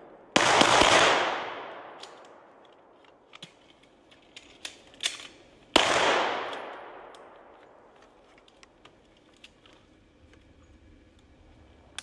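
Rifle fire: a rapid string of shots about half a second in, ringing out and echoing off through the trees. A few light clicks and knocks of gear handling follow, then another shot with a long echoing tail about six seconds in.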